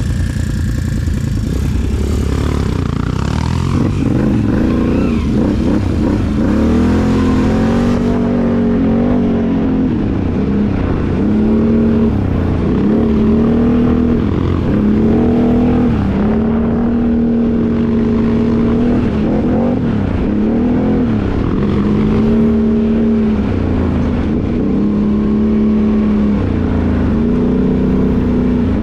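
Can-Am Outlander ATV engine running under way, its pitch climbing and dropping again and again as the throttle is opened and eased off, roughly every couple of seconds. Wind noise rushes over the microphone for the first several seconds.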